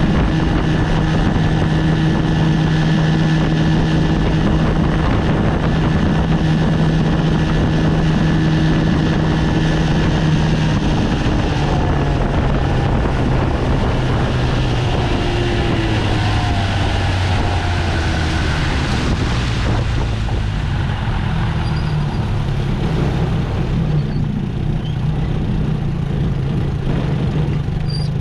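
1973 Johnson 20 hp two-cylinder two-stroke outboard motor running steadily under way, then throttled back about a third of the way in, its note dropping lower and the rushing hiss easing off toward the end.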